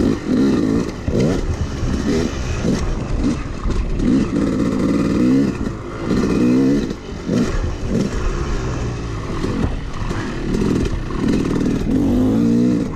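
Yamaha YZ250X two-stroke dirt bike engine revving up and easing off over and over as it is ridden hard around a motocross track, the pitch climbing and dropping every second or so.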